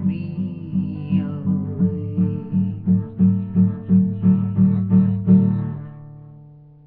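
Acoustic guitar strummed in an even rhythm, about three strums a second, with a sung note trailing off about a second in. The strumming stops before the end and the last chord rings and fades away, closing the song.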